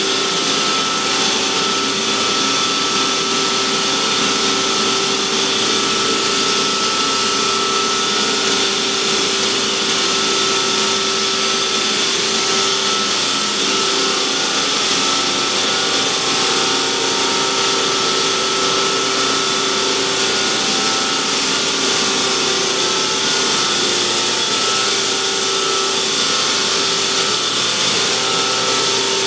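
Hydraulic power unit of a Strippit LVD CNC press brake running steadily at idle, the ram not moving: an even whine of a few held tones over a constant hiss.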